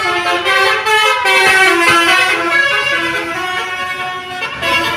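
Indonesian 'telolet' bus horn playing a melody: several horn tones sounding together and stepping from note to note.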